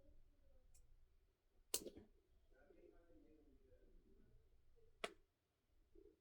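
Two sharp clicks of scissors snipping through packaging ties, about three seconds apart, the first much louder, against near silence.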